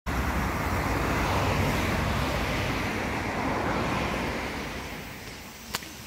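A car driving past on the road, its noise loudest in the first couple of seconds and fading away, with a single sharp click near the end.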